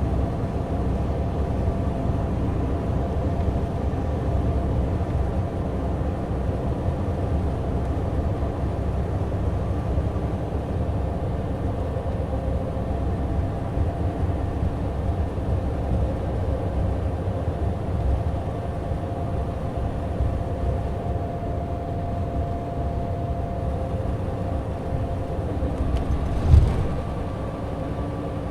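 Mitsubishi Fuso Aero Ace coach's diesel engine running steadily at cruising speed, with road and tyre noise and a steady low drone. One short thump sounds near the end.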